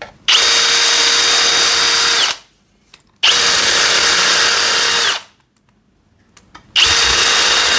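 Milwaukee cordless drill driving a DeWalt DWASHRIR shear attachment as it cuts sheet metal, running in three bursts of about two seconds at a steady speed with a steady whine. Each burst starts and stops sharply, and the third begins near the end.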